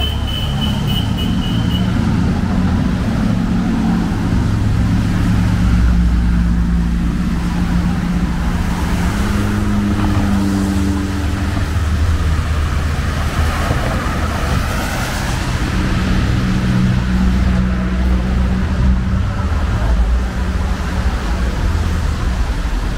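Street traffic close by: a steady low rumble of car engines, with a vehicle swelling past and fading about two-thirds of the way through.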